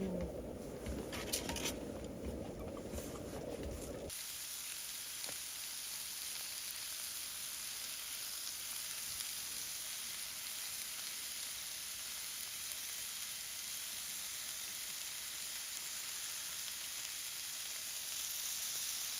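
Food sizzling in a frying pan, a steady even hiss. It starts abruptly about four seconds in; before that there is a lower rumbling noise with a few knocks.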